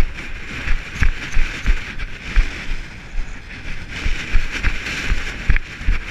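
Running footsteps on a rocky hill path, about three a second, each landing jolting a body-worn action camera, with wind blowing on the microphone.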